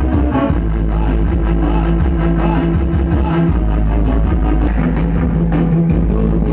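Music played loud through a car audio system: a rock-style track with guitar and heavy, sustained bass.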